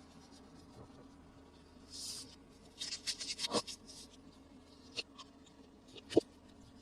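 Close-up handling of toy packaging: a short rustle, a burst of crackling plastic, then a few separate sharp taps.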